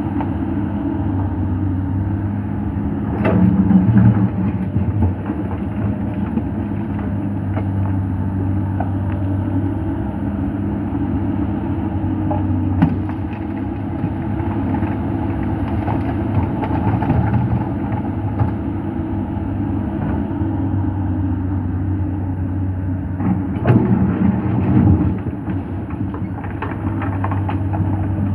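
Komatsu PC200 excavator's diesel engine running steadily under load, with loud knocks and clanks a few seconds in, once near the middle and again toward the end.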